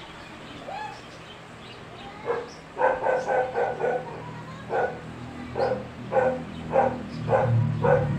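A small dog barking repeatedly in short, high yaps: a quick run of several about three seconds in, then single barks every half second or so.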